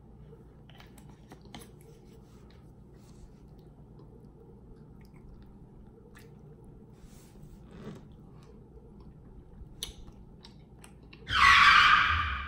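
Soft eating sounds: fingers picking at rotisserie chicken and scattered quiet chewing clicks. Near the end a sudden loud pitched sound cuts in and fades out over about a second and a half; it is an edited-in sound effect over a tinted close-up shot.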